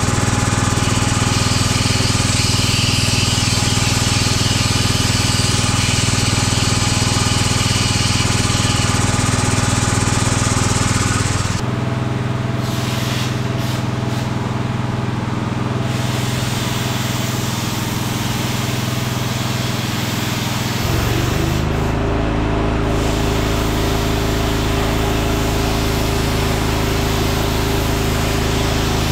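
Air plasma cutter cutting thin steel plate, a steady hiss of air and arc over a steady machine hum. About eleven seconds in the hiss stops and the hum changes pitch. About two-thirds of the way through, a deeper hum comes in and runs on.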